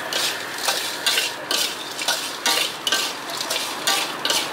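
A metal utensil stirring and scraping food in a pan, in repeated strokes about twice a second, over a steady sizzle of frying.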